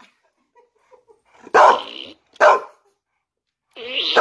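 Pit bull barking: three loud, short barks, the first about one and a half seconds in and the last running into the end.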